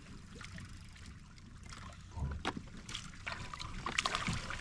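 Water splashing and dripping, with scattered clicks and knocks and a dull thump about two seconds in.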